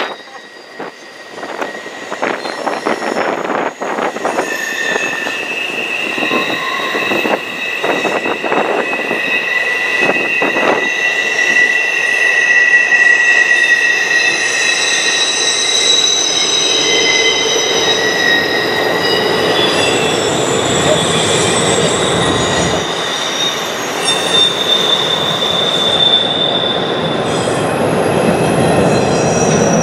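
Double-stack intermodal freight cars rolling across a steel bridge, their wheels squealing in several long, steady high tones. Sharp wheel clicks sound over the first ten seconds or so, and a rumble builds under the squeal through the second half.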